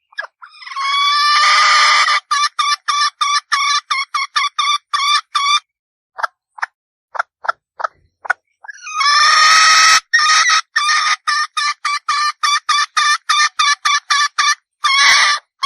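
Red junglefowl hen calling: a drawn-out note followed by a fast run of short clucks, about four or five a second, given twice, with a few separate short notes in between.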